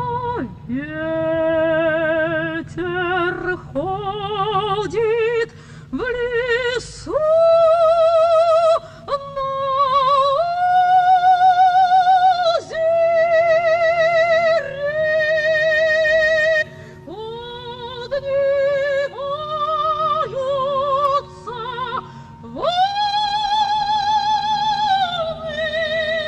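Operatic soprano singing a slow arioso in long held notes with wide vibrato, phrase after phrase, over soft orchestral accompaniment with sustained notes underneath.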